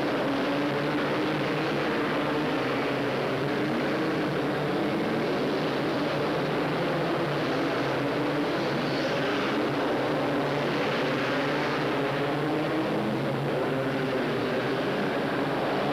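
Several racing four-wheeler ATV engines running together, their overlapping notes shifting in pitch as the riders rev and lift.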